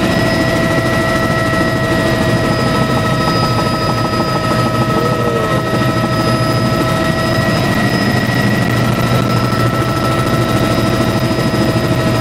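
Helicopter engine and rotor noise heard from inside the cabin in flight: a loud, steady rumble with several steady high whining tones over it.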